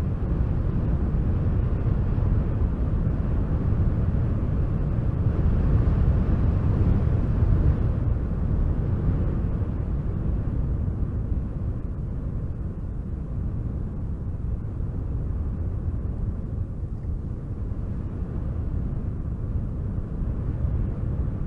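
Wind blowing with a deep, steady rumble that swells in a gust about six seconds in and then eases off.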